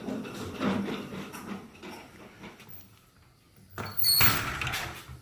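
A door being opened: a short, loud scraping rush about four seconds in, after some quieter handling noise.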